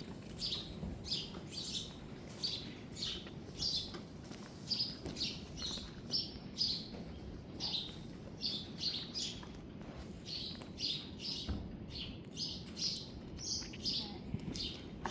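A small bird chirping over and over, two or three short chirps a second, over a low steady background rumble.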